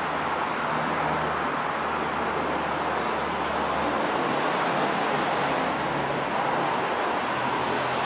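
Steady outdoor background noise: an even, continuous rushing sound with a faint low hum underneath that drops away about halfway through.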